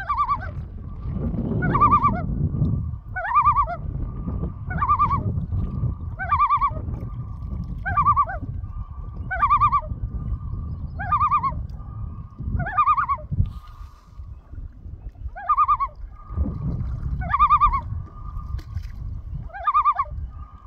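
Common loon calling: a long series of rising-and-falling notes, about one every second and a half, over a held tone, with a low rumble underneath.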